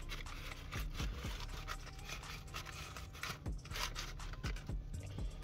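Faint, irregular scratching and scraping of takeaway packaging being handled: a paper wrapper around a naan and a polystyrene food box.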